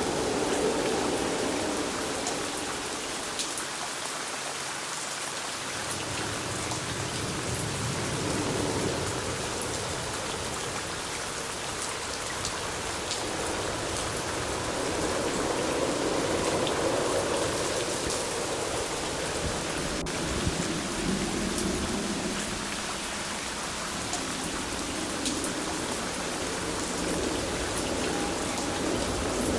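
Steady rain falling: an even hiss with many small drop ticks, under a low rumbling that swells and eases a few times.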